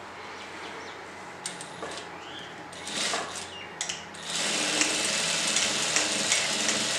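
Fabric being shifted into place with a few soft clicks and rustles. Then, about four seconds in, an industrial sewing machine starts and runs at a steady speed, stitching a seam.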